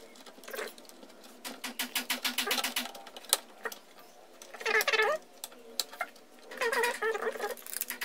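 Clicks and rattles of metal and plastic computer-case parts being handled: a desktop's drive bay and its optical and hard drive carriers being slid and pressed into place, with a run of quick, even clicking in the first half.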